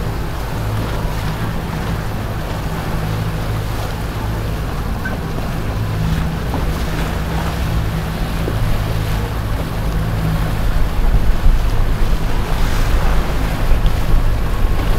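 Boat engine running steadily, with water rushing and wind buffeting the microphone; it grows louder about ten seconds in.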